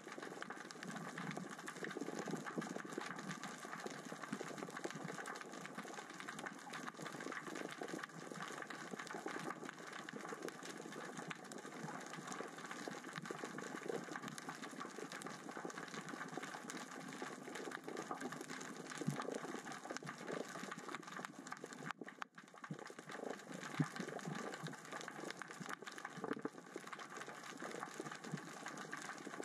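Underwater crackling of small rocks rolling and clicking across the sea floor as the current and tide move them: a steady, dense patter of tiny ticks, heard through a waterproof camera housing. It drops away briefly about two-thirds of the way through.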